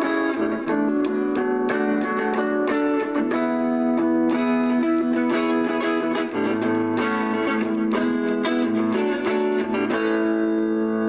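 Electric guitar on a clean amp tone, picked chords and melody notes ringing over each other in a relaxed, improvised easy-listening style.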